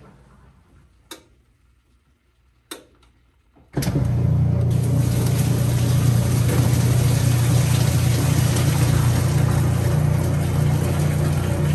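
Kenmore 80 Series top-load washer starting its neutral drain: two faint clicks, then about four seconds in the motor comes on suddenly and the drain pump runs with a steady hum and rushing water as it pumps out the wash water, the tub not spinning.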